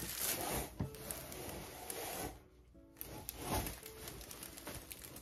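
Fabric rustling and rubbing as the padded cotton mat of a Lovevery play gym is lifted and handled, with soft background music. The rustling dips briefly about halfway through.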